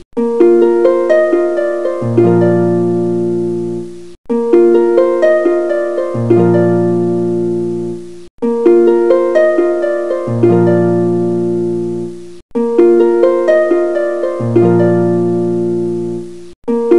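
Background music: a gentle plucked-string, harp-like melody over a low bass note. A short phrase loops about every four seconds, with a brief break between repeats.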